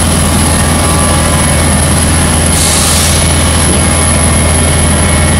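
Paper-pulp egg tray production line running, a loud steady machine drone with a strong low hum. A short hiss cuts in about two and a half seconds in.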